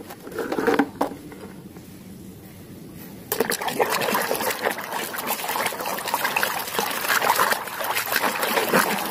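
A hand stirring and splashing through a basin of muddy water, a continuous wet sloshing and trickling that starts suddenly about three seconds in. Before it, a few brief knocks of plastic toys being handled in a plastic basket.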